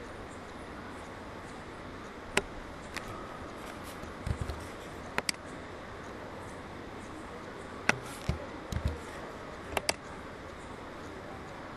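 Computer mouse clicking: about seven sharp clicks scattered through, some in quick pairs, with a few soft low thumps, over a steady hiss.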